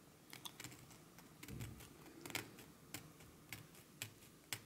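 Faint, irregular short scraping ticks of a small file sanding down the tip of a plastic stylus, with a dull low bump about a second and a half in.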